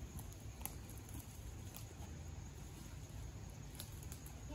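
Faint footsteps through dry leaf litter and brush, with a few sharp crackles of twigs breaking, over a low steady rumble.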